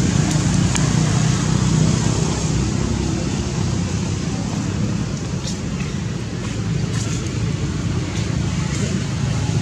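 Steady low rumble of road traffic, with a few faint ticks over it.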